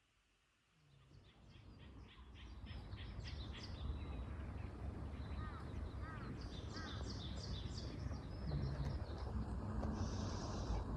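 Birds chirping and calling over a steady low outdoor background, fading in after about a second of silence.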